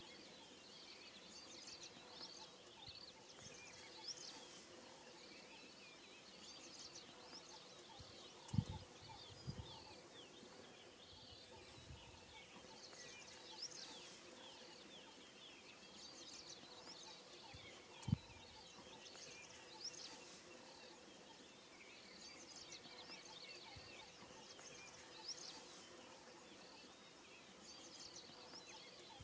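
Faint chorus of small birds chirping and trilling over quiet open-country background noise, with a few brief low thumps of wind hitting the microphone, the loudest about a third of the way in and again past halfway.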